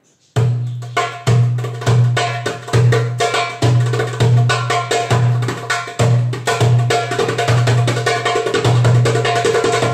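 Darbuka played by hand in a fast rhythm. Deep, ringing bass strokes recur over and over, mixed with many sharp, dry slaps near the rim. It starts about half a second in.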